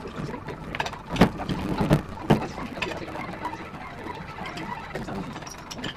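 Underwater sound: a steady crackle of small clicks and pops through the water, with a few sharp knocks a little over a second in and around two seconds in.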